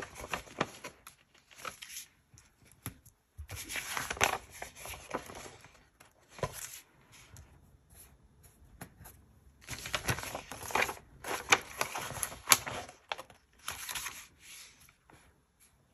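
Paper sticker sheet and planner pages rustling and crinkling in several short bursts, with small sharp clicks, as stickers are peeled off with tweezers and pressed down.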